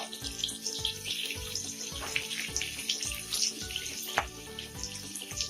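Cut vegetables sizzling and crackling as they fry in hot mustard oil in a kadai, with a few sharp clicks.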